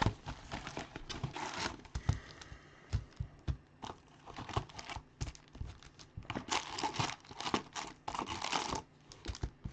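Wrappers of Bowman Draft baseball card packs being torn open and crinkled by hand, in several bursts with small taps and clicks of handling between; the longest crinkling comes about six to nine seconds in.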